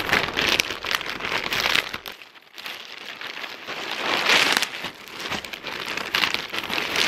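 Grey plastic mailer bag crinkling and rustling as it is opened and rummaged through by hand. It goes briefly quieter about two seconds in, then rustles loudly again.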